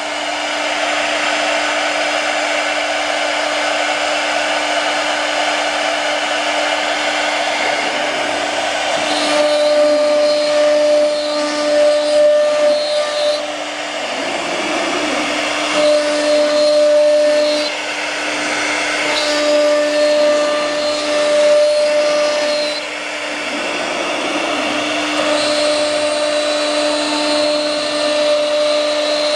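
Small CNC router's spindle running with a steady whine while its bit cuts lines into a wood board. From about a third of the way in, a second, higher tone comes and goes four times, in stretches of two to four seconds, and the machine gets a little louder during each.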